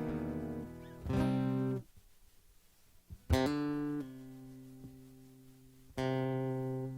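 Guitar strumming single chords and letting each one ring out, about four in all, with a near-silent pause of about a second and a half between the second and third.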